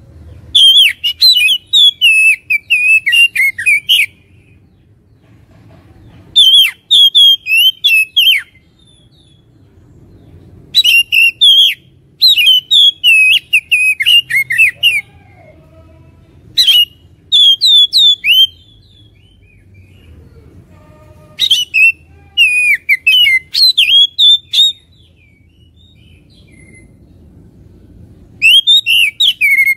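Oriental magpie-robin (kacer) singing in seven loud bursts of rapid, varied, sliding high notes, each phrase one to four seconds long with short pauses between. It is a lure recording played to provoke a kept kacer into persistent fighting song.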